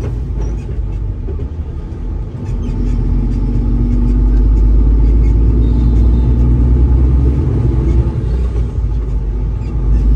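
Diesel engine of a tractor-unit truck heard from inside the cab while driving: a steady low rumble that grows louder about three seconds in, as the engine pulls harder.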